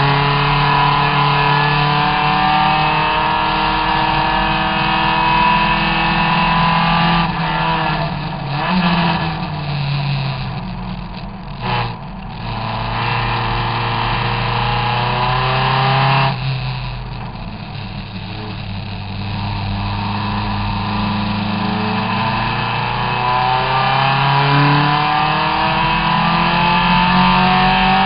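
Triumph TR3S Tribute race car's engine heard from on board at racing speed, its revs climbing under hard acceleration. The revs drop away twice as the driver lifts off, about a quarter of the way in and again a little past halfway. After each lift the engine pulls back up, rising in pitch in steps.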